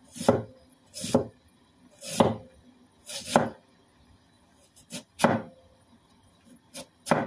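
Cleaver chopping raw potato into small pieces: about six sharp chops roughly a second apart, with a couple of lighter taps in between near the end.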